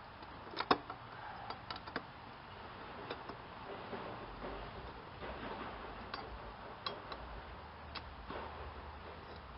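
Irregular sharp metal clicks and clinks of a ratchet and wrench working the nuts and bolts that hold a lawn mower blade. There is a cluster in the first two seconds, then a few more spaced out.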